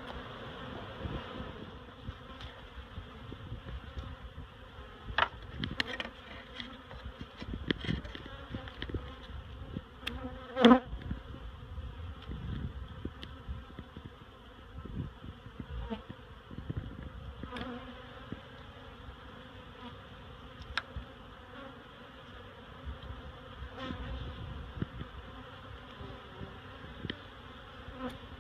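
Honeybee colony buzzing, a steady dense hum of many bees, with scattered knocks and clicks and one louder knock about ten seconds in.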